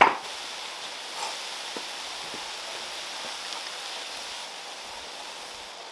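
Minced beef sizzling steadily as it fries.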